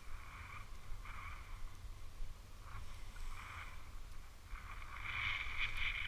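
Skis sliding over snow through a series of turns: a swish roughly every second, the last one the longest and loudest, over a low rumble.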